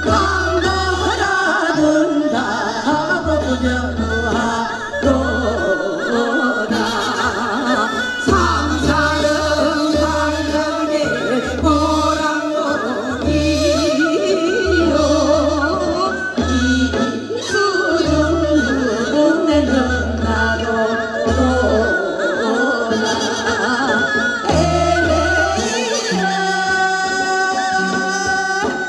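Women singing a Korean folk-song (minyo) medley into microphones, over amplified backing music with a regularly pulsing bass.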